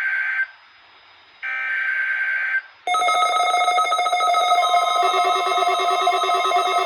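Emergency Alert System SAME digital header: warbling data bursts, the last of three ending about two and a half seconds in. About a second and a half of quiet later, a steady, buzzy alert attention tone starts and holds. Together they open a required weekly test alert.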